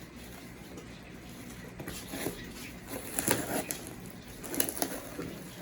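Faint rustling, crackling and light clicks of a parcel being handled, busiest in the middle of the stretch.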